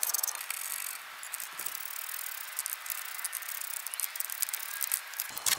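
Hand socket ratchet clicking in quick runs as a bolt is turned, with one louder sharp click near the end.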